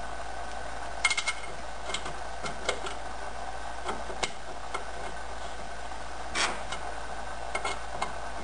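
Light metallic clicks and taps as bolts are started by hand into a compressor's metal housing, a quick cluster about a second in and single ticks after, over a steady room hum.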